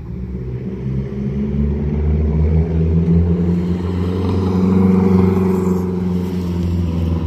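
Mazda Speed 3's turbocharged four-cylinder engine and exhaust as the car drives past at about 35 mph, a steady engine note swelling to its loudest about five seconds in, then easing. This is a drive-by exhaust noise test, the pass reading right at 90 dB on a sound level meter 50 feet from the lane.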